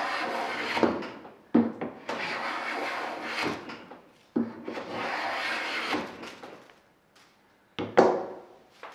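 Low-angle jack plane with a freshly sharpened blade, set for a slightly thicker shaving, taking three strokes along a block of tulip poplar, each pass a second or two long and starting sharply as the blade bites. Near the end, a sharp knock as the plane is set down on the wooden bench.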